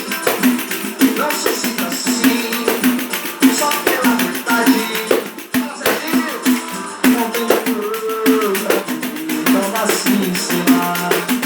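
Music: a tambourine shaking and striking a fast, busy rhythm under a melodic line.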